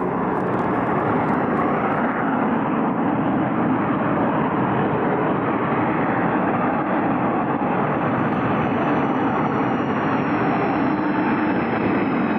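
Volcanic crater venting gas with a loud, steady roar that does not change.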